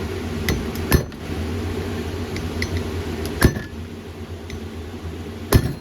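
Sharp metal strikes, four of them spaced unevenly, the last two the loudest: an engine valve being smacked back down onto its seat in the cylinder head to straighten a slight bend. A steady low hum runs underneath.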